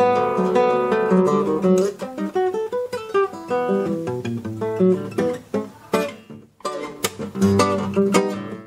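Solo nylon-string classical guitar playing a choro, fingerpicked in quick runs of single notes over bass notes, with a brief pause about six and a half seconds in before a loud chord.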